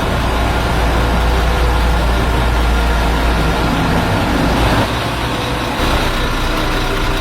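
Truck engine running with a steady low rumble that eases off about four and a half seconds in.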